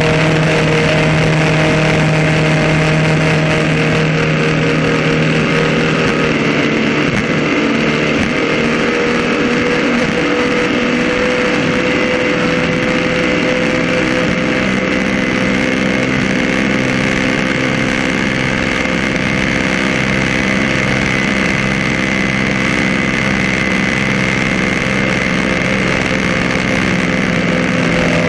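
Ski race boat engine running flat out at high speed while towing a skier, a steady loud drone over the constant hiss of spray and rushing air. The engine note shifts slightly about six seconds in, then holds steady.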